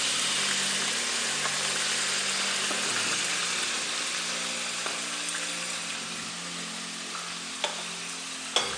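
Diced chicken, onion and mushrooms frying in oil in a pan, a steady sizzle that slowly eases. A couple of sharp knocks come near the end.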